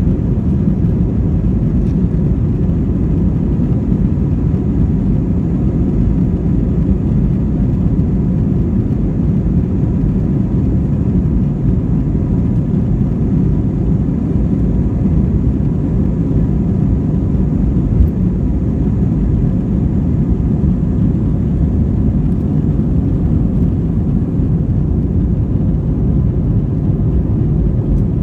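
Airbus A320's twin jet engines at takeoff power, heard inside the cabin as a loud, steady low noise with the rumble of the takeoff roll down the runway. A single thump about two-thirds of the way through.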